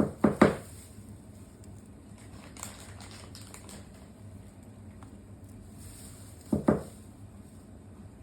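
Three quick knocks, then light faint tapping, and two more knocks about six and a half seconds in, over a low steady hum.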